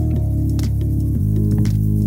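Background music: sustained bass notes that change twice, with light percussive hits.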